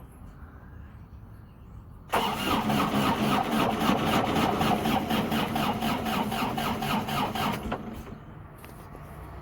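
International 4140 skid steer's diesel engine being cranked by its starter, a rhythmic chugging for about five and a half seconds that stops without the engine catching.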